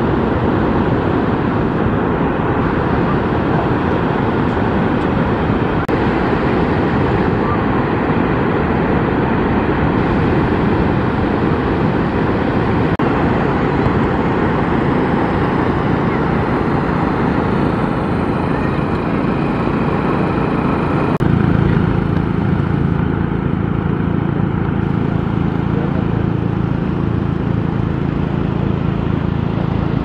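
Steady outdoor noise of wind and surf at the water's edge. The low end grows heavier about two-thirds of the way through.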